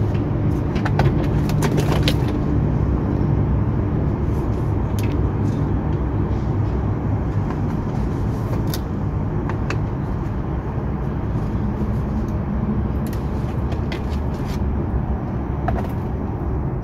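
A steady motor-vehicle rumble, with scattered light clicks and knocks from the plastic door trim panel being pulled off its clips.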